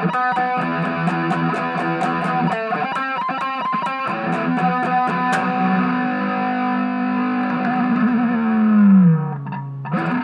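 Distorted electric guitar playing a lead solo: fast picked notes, then a long held note with vibrato that drops sharply in pitch near the end, followed by a couple of struck notes.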